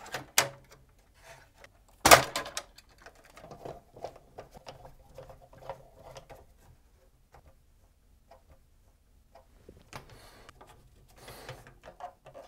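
Handling noise as a circuit board is fitted back into a MiniDisc deck's open metal chassis and its cables reconnected: scattered clicks, knocks and rustles, with one sharp knock about two seconds in.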